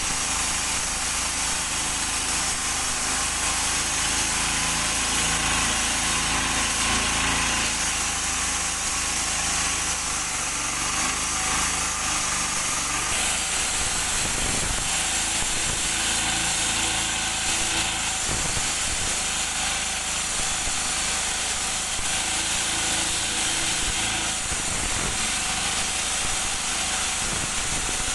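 Walk-behind concrete road saw running under load, its engine and blade grinding steadily through a concrete road slab while water is sprayed on the cut.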